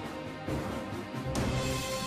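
Dramatic background music with sustained tones, punctuated by two heavy hits, about half a second in and again shortly after a second.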